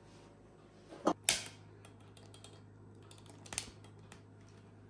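A few sharp clicks from a long-nosed lighter being triggered to light a tea light in a glass teapot warmer: two close together about a second in, and one more after three and a half seconds, over a faint low hum.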